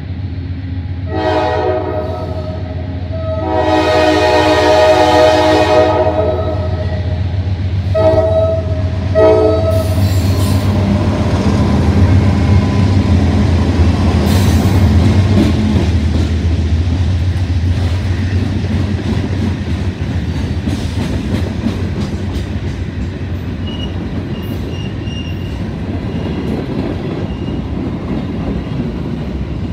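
A Pan Am Railways freight train's diesel locomotive sounds its multi-chime air horn in four blasts, one long one and then two short ones near ten seconds in. The locomotive's diesel engine then rumbles past, followed by the freight cars rolling by with their wheels clacking over the rail joints.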